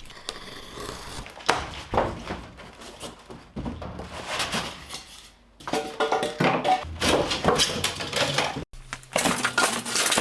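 Irregular knocks, thuds and clatters of a large packaged workshop cabinet being unboxed, under background music.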